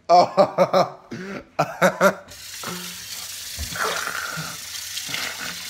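A man coughing and gagging at a bad taste: several short loud heaves in the first two seconds. Then a kitchen tap starts running at about two seconds in and runs on as a steady hiss.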